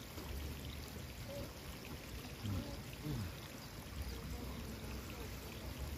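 Water running in a steady trickle, with a low rumble beneath it and a brief faint murmur of a voice about halfway through.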